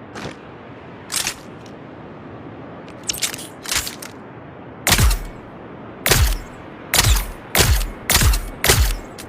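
P-35 Re-educator dart rifle sound effect: a few light mechanical clicks and clacks, then six sharp shots in quick succession, each with a low thump, over a steady faint hiss.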